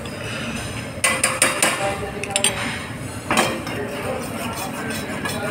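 Steel ladle clinking and scraping against a steel pan while stirring dal, with sharp clinks about a second in, again around two and a half seconds and near three and a half seconds, over a steady background hiss.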